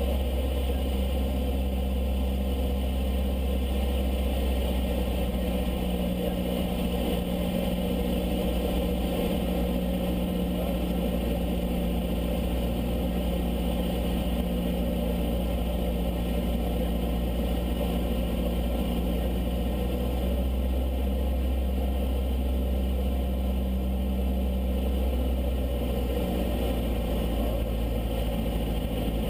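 Piston engine and propeller of a high-wing single-engine light aircraft droning steadily in flight, heard inside the cockpit, the engine note shifting slightly near the end.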